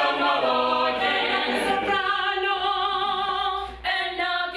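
Mixed-voice choir singing a cappella, holding sustained chords, with a brief break about four seconds in.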